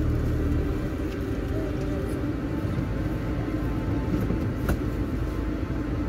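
Car driving, heard from inside the cabin: a steady low rumble of engine and road noise, with one sharp click a little before the end.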